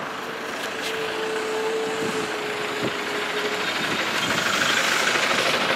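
Street traffic: vehicle engines and road noise, with a steady single-pitched tone for the first three and a half seconds and the traffic swelling a little near the end.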